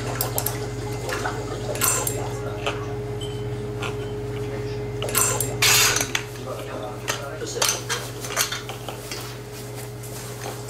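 Metal diving equipment being handled: irregular metallic clinks and clatter, with a short loud hiss about five seconds in, over a steady low hum.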